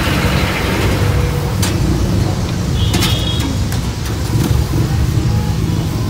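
1.5-horsepower window-type air conditioner running just after a refrigerant recharge, its compressor and fan giving a steady low hum. A couple of light clicks break in about two and three seconds in.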